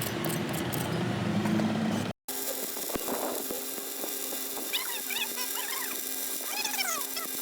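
A noisy stretch that cuts off about two seconds in, then a steady hum with two brief runs of short rising-and-falling animal calls, like whimpers.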